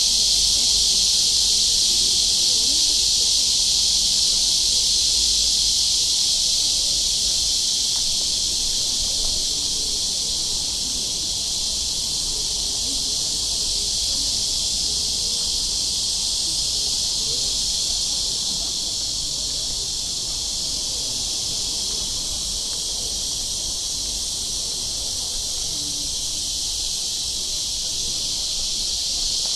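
Cicadas singing in a dense, steady chorus, a high hissing drone that eases slightly after the first several seconds.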